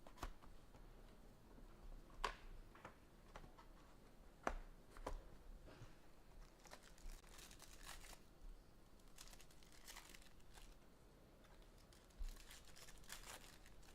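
Faint crinkling and tearing of a trading card pack wrapper, with scattered light clicks and short rustles as the cards are handled.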